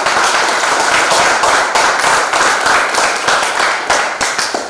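Audience clapping, a dense patter of many hands that starts to thin out near the end.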